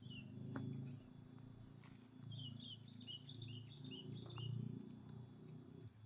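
A hand scraping and digging in loose soil at a burrow entrance, a low uneven rustle with a few sharp clicks of dirt and twigs. In the middle a bird gives a quick series of about ten short, falling chirps.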